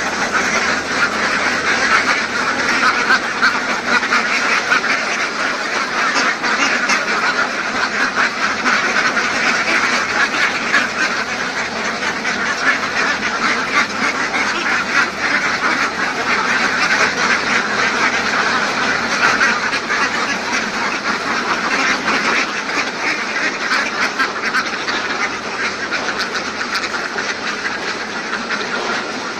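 A large flock of caged laying ducks quacking continuously, many calls overlapping at once.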